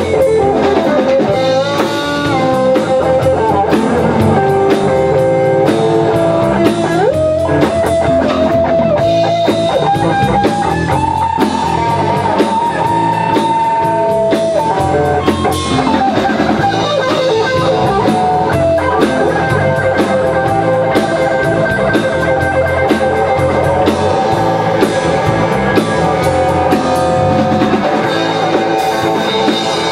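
Rock band playing an instrumental passage: electric guitars over a steady beat on the drum kit, with a lead line of long held notes that bend and slide in pitch.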